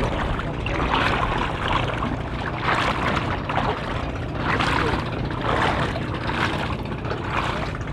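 Footsteps swishing and splashing through wet sand and shallow water about once a second, over a steady low rumble.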